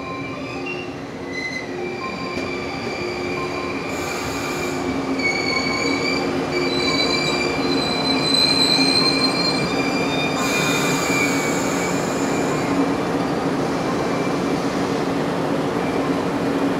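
JR West 115-series electric train's brakes squealing in several high, shifting tones as it slows into the platform and stops, growing louder until about halfway through. Short bursts of air hiss come about four seconds in and again just past halfway. The stopped train's equipment then hums steadily.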